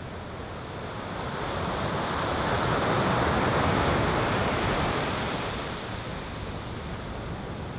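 Ocean surf washing onto a sandy beach: a soft rush of water that swells up over the first few seconds and fades away again.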